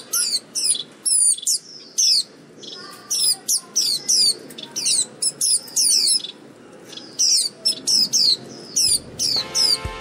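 Japanese white-eyes calling excitedly while being hand-fed: a run of short, high chirps, each sliding down in pitch, several a second. Background music comes in near the end.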